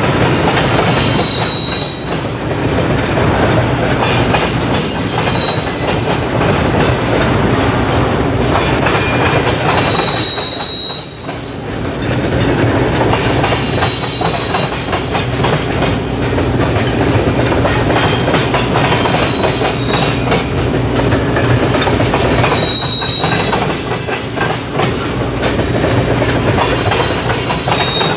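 Freight train cars rolling past on the rails, with clicking over rail joints and several brief high-pitched wheel squeals.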